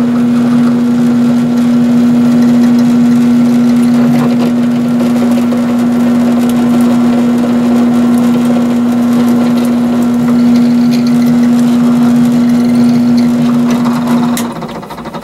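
Benchtop drill press motor running with a steady hum while the bit is fed down to drill a small tap hole for a 6-32 set screw in a metal part. The motor is switched off near the end and the hum stops.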